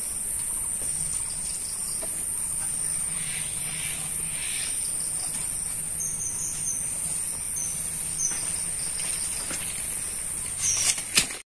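Insects drone steadily at a high pitch in the trees. A few short bird chirps come in about midway. Near the end there are a few sharp clicks.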